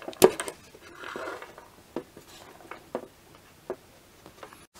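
Small steel parts of a Wildey pistol's bolt and barrel assembly clicking and rubbing as they are handled by hand, the cross pin pressed into place. There is a sharp click just after the start, then a few softer clicks about a second apart, with light sliding noise between.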